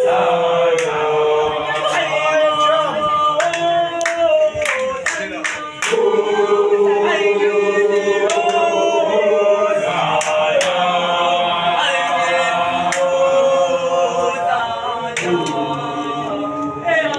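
A group of voices singing together a cappella in several parts, holding long notes that step up and down in pitch, with a brief dip about six seconds in and occasional sharp hits.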